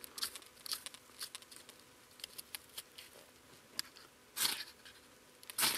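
Scraping of a ferro rod and blade against a dry stick: a run of small, quick scratches, then two longer, louder rasping strokes near the end as sparks are struck to light the tinder.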